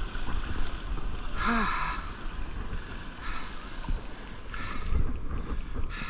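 Wind buffeting the microphone over shallow surf washing across wet sand, with a short falling tone about one and a half seconds in.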